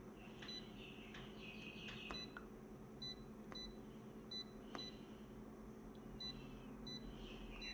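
Short, high electronic beeps repeating roughly every half second to a second, with a few sharp clicks, over a steady electrical hum.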